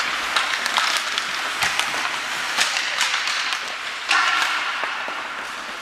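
Ice hockey skates scraping and carving on the ice, with sticks and the puck clacking in short sharp knocks, during a small-area game. A brief steady tone cuts in about four seconds in.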